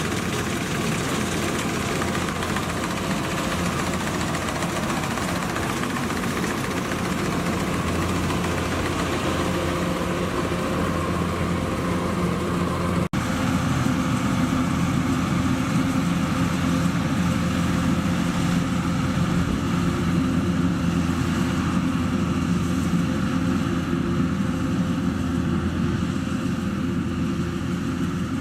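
Combine harvester's diesel engine and threshing machinery running steadily under load. A momentary dropout about halfway through, then the drone carries on a little louder with a different tone.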